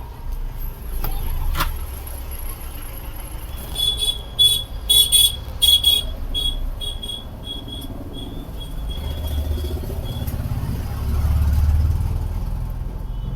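Low rumble of passing road traffic, with a run of short, high-pitched beeps about four seconds in that trail off over the next few seconds, and a single sharp click near the start.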